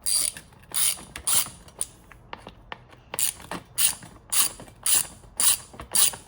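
Ratchet wrench clicking in repeated back-and-forth strokes, about two a second, while working on fuel filter housing hardware.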